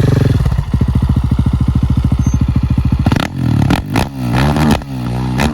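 2019 KTM 690 SMC R's single-cylinder engine, running through an FMF 4.1 exhaust and Tekmo header with no catalytic converter, idling with an even, lumpy beat. About three seconds in it is blipped sharply several times, with pops and crackles from the exhaust as the revs drop, from its pops-and-bangs tune.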